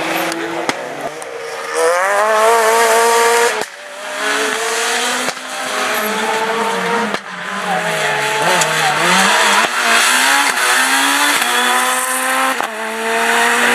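Rally car engines revving at full throttle, the note climbing through each gear and dropping at the shifts, in several short passes that cut abruptly from one to the next. In the middle, one note falls away and then climbs again.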